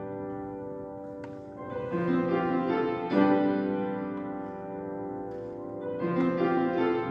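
Background music: slow, held chords that change every second or two.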